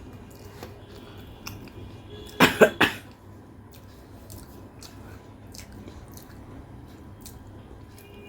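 A woman coughing three times in quick succession about two and a half seconds in, with a sore, hoarse throat; soft chewing clicks between.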